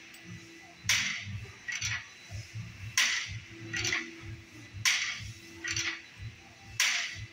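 Cable tricep pushdown reps on a gym cable machine: four reps about two seconds apart. Each rep brings a sharp, noisy burst followed by a smaller one, from the weight stack and cable moving and the lifter's effort.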